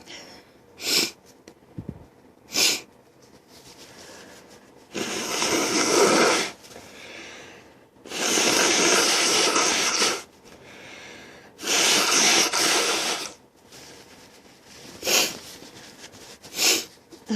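A person with a head cold sniffling and sneezing: short, sharp sniffs near the start and near the end, with three longer, louder noisy breaths through the nose in the middle.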